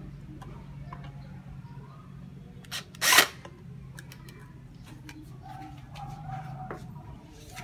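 Makita cordless drill driving screws through a clear plastic vacuum wall dock: a steady low motor hum, with a short loud burst about three seconds in.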